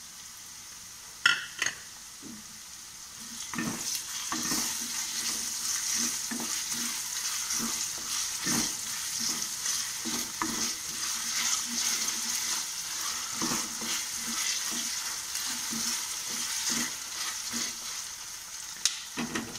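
Onions sizzling in oil in a metal kadai with ginger-garlic paste, stirred and scraped with a wooden spatula. The spatula knocks against the pan many times. There are two sharp knocks about a second in, and the sizzle and stirring grow louder from about three and a half seconds in.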